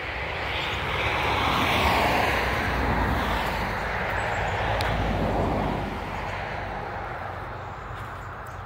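A vehicle passing by: its noise swells over the first two seconds, holds, then fades after about six seconds, over a steady low hum.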